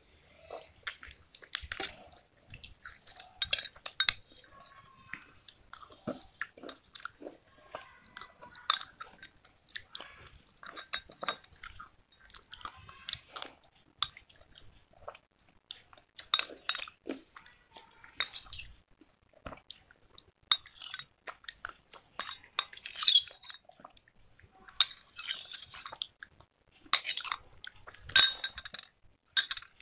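Close-up eating sounds: a spoon clinking and scraping in a glass of creamy drink, with chewing and sipping from the glass. Short sharp clicks and mouth noises come irregularly throughout.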